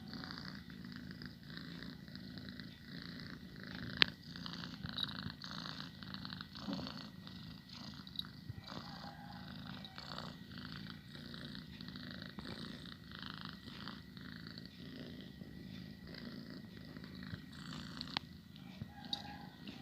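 Domestic cat purring steadily, with a sharp click about four seconds in and another near the end.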